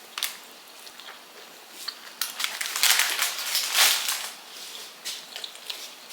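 Crinkling and rustling of takeaway food packaging being handled, with scattered crackles and a louder run of them about three to four seconds in.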